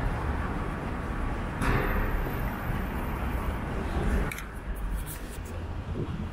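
City street traffic noise: a steady low rumble of passing cars. It grows louder for a couple of seconds midway, then drops off suddenly.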